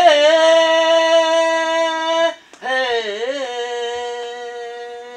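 A man singing two long held notes without words, each opening with a wavering bend in pitch. The first breaks off about two seconds in; the second starts a moment later and slowly fades.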